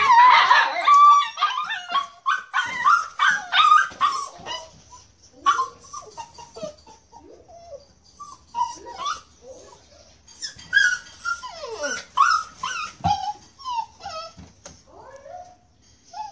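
Dogs whining and yipping in pleading cries. The cries are loud and packed close together at first, then come in shorter, broken runs of rising and falling whimpers.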